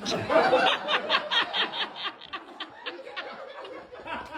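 A person laughing in a quick run of short ha-ha pulses, loud at first and tapering off over a few seconds.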